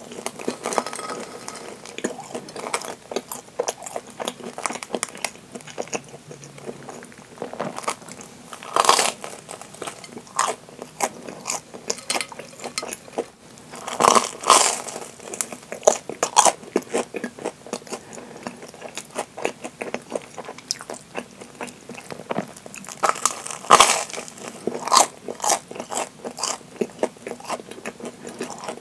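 Close-miked biting and chewing of deep-fried Japanese curry bread. Its crisp breadcrumb crust crackles under the teeth, with louder crunching bites about nine, fourteen and twenty-four seconds in and steady small chewing crackles between them.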